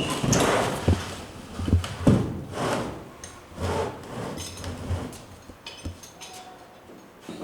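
Wooden parts of an old zelkova-wood danjiri cart knocking and scraping against each other as it is taken apart: irregular knocks and rubbing scrapes, busiest in the first few seconds, then sparser.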